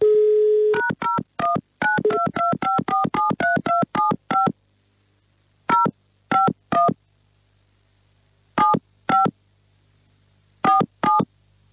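Telephone dial tone for under a second, then touch-tone keypad beeps as a phone number is dialed. A quick run of about a dozen two-tone beeps comes first, then three more, two more and a last two, with pauses between the groups.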